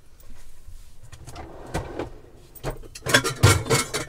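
Saucepans and lids being taken out of a cupboard and handled: scattered knocks and clanks, becoming a dense, loud clatter in the last second.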